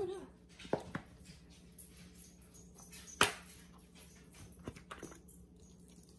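A mustard bottle being handled as mustard goes onto marinating chicken: a few light clicks and taps, with one sharp click about three seconds in, over a faint steady hum.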